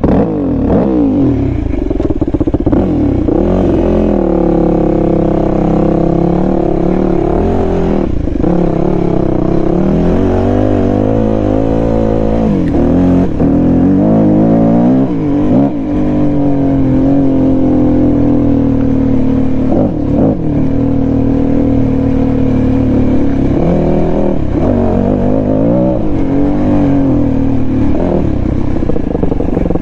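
Dual-sport motorcycle engine under way off-road, its revs rising and falling over and over as the throttle is worked, with several quick drops and pick-ups in pitch.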